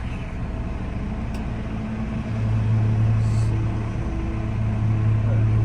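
Tractor engine running steadily with a low hum that gets louder a couple of seconds in.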